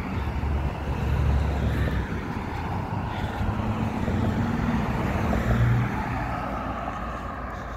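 Road traffic: cars driving past on a busy road, with a steady tyre-and-engine rumble that swells in the middle and eases near the end.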